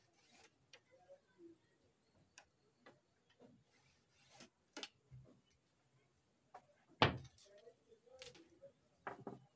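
Faint handling of tailoring tools on a cloth-covered cutting table: scattered light taps and rustles, with one louder wooden knock about seven seconds in as a long wooden tailor's ruler is set down, and a few more taps near the end.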